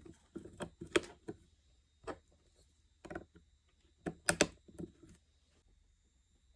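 Small LEGO plastic pieces clicking and snapping together by hand in irregular clicks, one sharp double click about four seconds in. The clicks stop about five and a half seconds in.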